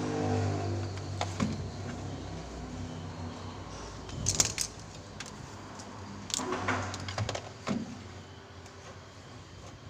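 Light metallic clicks and rattles of tester probes and fridge wiring being handled, loudest a little over four seconds in and again around six to eight seconds, over a steady low hum.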